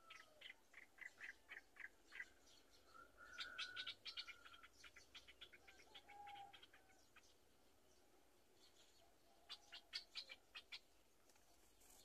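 Black-winged kite nestlings chirping faintly in quick runs of short, high notes, in three bouts: begging calls while the parent feeds them at the nest.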